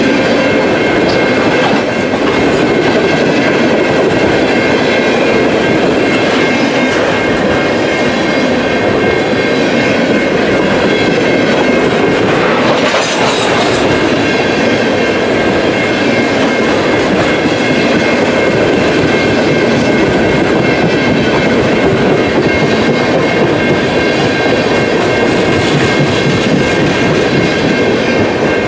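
Freight train tank cars rolling past at close range, their steel wheels clattering steadily over the rail joints, with a faint high steady ringing from wheels on rail. About halfway through there is a brief surge of sharper, hissier noise.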